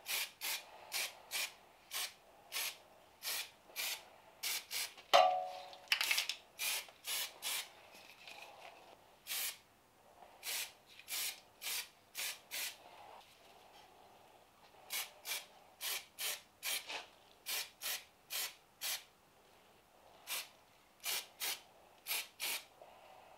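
Aerosol spray can of primer hissing in many short bursts, about two a second, with a few brief pauses. About five seconds in comes one sharp, louder knock with a short ring.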